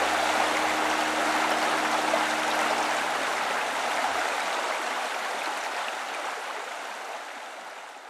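Flowing mountain stream: a steady, even rush of water that fades out slowly over the last few seconds.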